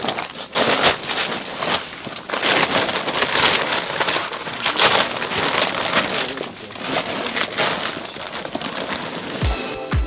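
Irregular rustling, crackling noise, like material being moved or dragged over the ground. A music beat with deep thumps comes in near the end.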